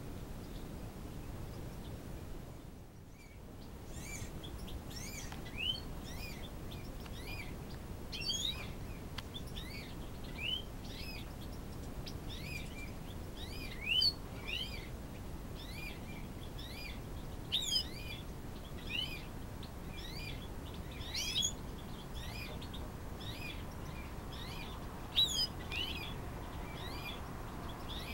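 Eurasian bullfinches chirping: short upswept calls repeated about once or twice a second, starting after a brief gap a few seconds in, over a steady low background hiss.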